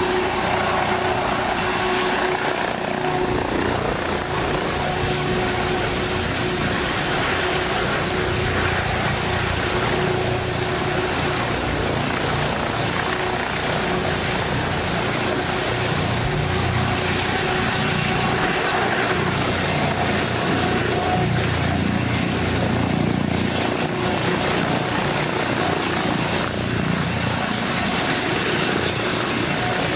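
Helicopter running steadily: continuous rotor and engine noise with a steady hum that does not rise or fall.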